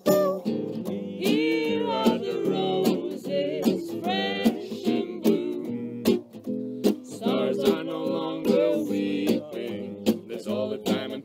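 Small acoustic gypsy-jazz band playing: an acoustic guitar strums chords, a cymbal is struck on a steady beat, and a melody line wavers and bends in pitch over them.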